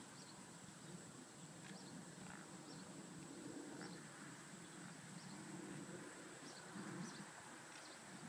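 Faint outdoor ambience: a steady high hum with short high chirps every half second to a second, over a low background noise.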